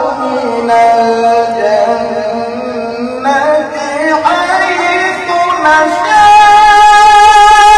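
A male qari reciting the Qur'an in melodic tilawah style, drawing out long ornamented notes. About six seconds in he rises to a loud, high note and holds it.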